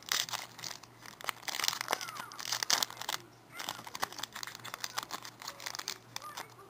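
Foil wrapper of a 2007 Upper Deck Masterpieces trading-card pack crinkling and tearing as it is pulled open by hand, in a run of sharp crackles, heaviest in the first three seconds, then lighter.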